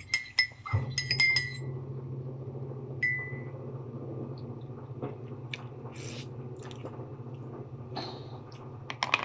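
Metal teaspoon clinking against the inside of a coffee mug while stirring: a quick run of ringing clinks in the first second and a half, then a single clink about three seconds in. A steady low hum starts just before the first second and carries on underneath.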